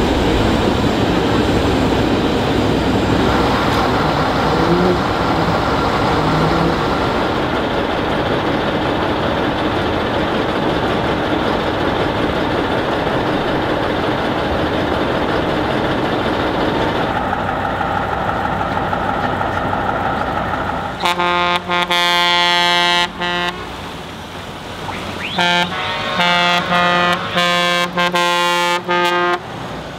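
Heavy truck engines running loudly. About two-thirds of the way in a truck air horn sounds one long blast, then several shorter blasts near the end.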